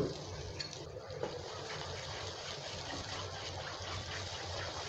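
Whisked yogurt sizzling in a hot pan of fried masala as a wooden spatula stirs it in: a steady hiss with fine crackles.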